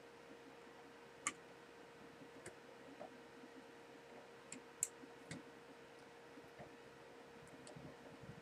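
Near silence with a faint steady hum and a handful of faint, scattered clicks, about one every second or so, from small parts being handled.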